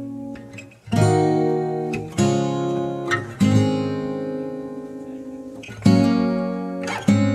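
Background music: a guitar strumming slow chords, each left to ring and fade before the next.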